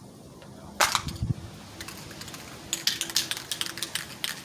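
Krylon Fusion spray paint can being shaken: the mixing ball inside rattles in a rapid run of clicks from about three seconds in. A single sharp snap comes about a second in, before the rattling starts.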